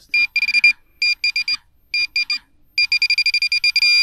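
Minelab Pro-Find 40 pinpointer beeping: groups of quick, high, single-pitched electronic beeps. Near the end the beeps speed up and run together into a steady tone, the way a pinpointer signals metal close to its tip.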